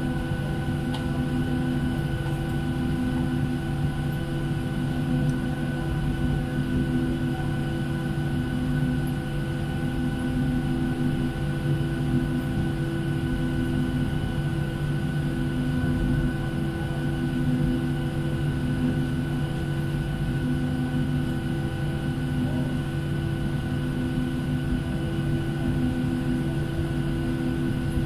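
Steady cabin hum of a Boeing 737-700 standing at the gate before pushback, the sound of the aircraft's systems and air running. It is made of several fixed tones over a low rumble, with one mid tone that swells and fades every few seconds.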